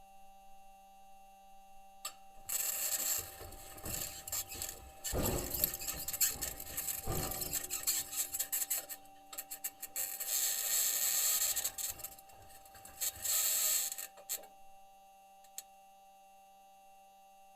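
Perseverance rover's metal wheels grinding and scraping over Martian rock, recorded by the rover's onboard microphone: a scratchy, clattering rasp begins a few seconds in and stops near the end, with two heavier knocks in the middle. A steady electrical hum runs underneath.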